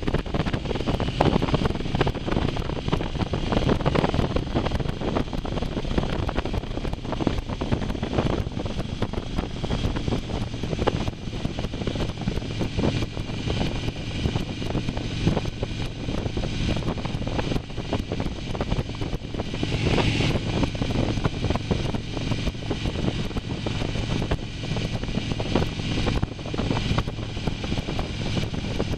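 Wind rushing over the microphone on a moving motorcycle, with the engine's steady low hum underneath. A brief louder, hissier rush comes about two-thirds of the way through.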